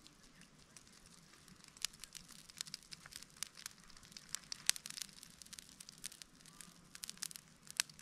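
Wood campfire crackling: irregular sharp pops and snaps that start about two seconds in, over a faint background hiss.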